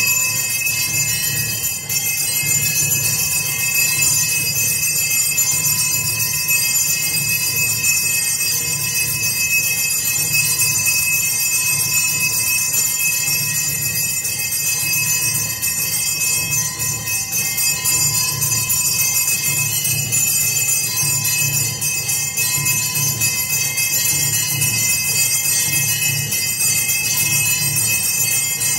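Temple bells ringing continuously, without pause, during an aarti, with a steady low drone beneath.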